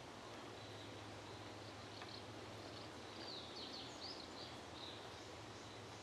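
Faint birds chirping over a steady outdoor hiss, with a quick run of short high chirps past the middle.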